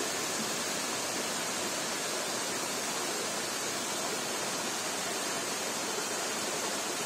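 Waterfall and the shallow rocky stream below it: a steady, even rush of falling and running water.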